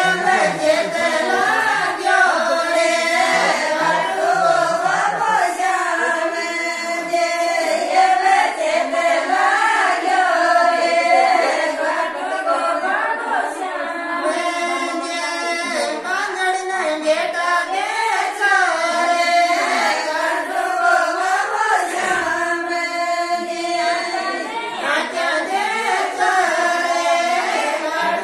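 Group of women singing a wedding folk song (vivah geet) together, the melody rising and falling without a break.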